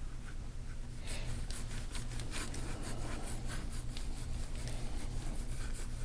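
Gua sha scraping tool rasping over oiled skin on a back in quick repeated strokes, several a second, starting about a second in. A low steady hum runs underneath.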